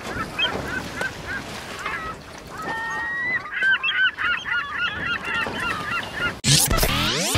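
A flock of birds calling, many short overlapping calls that grow busier in the middle. Near the end a loud rising whoosh cuts in over them.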